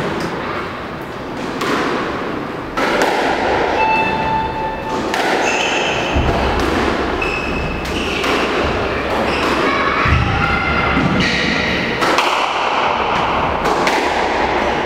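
Squash rally: the ball thuds off racquets and court walls about once a second, while the players' shoes squeak in short bursts on the wooden floor.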